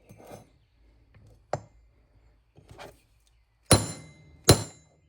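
A light tap, then two loud hammer strikes on metal near the end, under a second apart, each with a short metallic ring.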